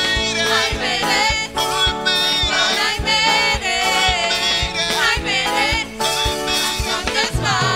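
Live gospel praise song: a man sings lead into a microphone over a band, with a steady drum beat underneath.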